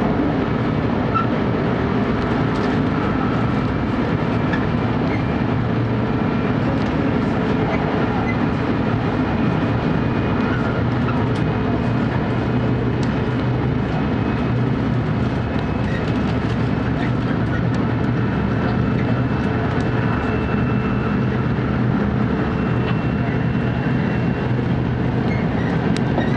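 Steady running noise of an E4 series Max double-deck Shinkansen at speed, heard inside the carriage: an even low rumble of wheels and running gear with a few faint ticks.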